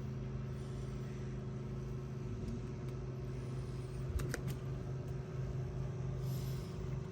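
A steady low mechanical hum of several held tones, one of which drops out partway through, with a couple of faint light clicks a little over four seconds in.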